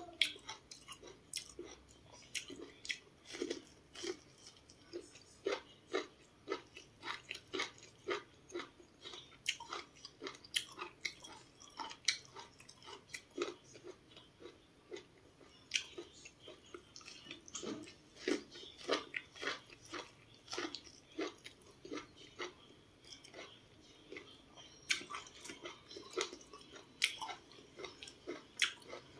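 Close-up chewing of boiled sweet corn: a steady run of short, wet mouth clicks and crunches, two or three a second.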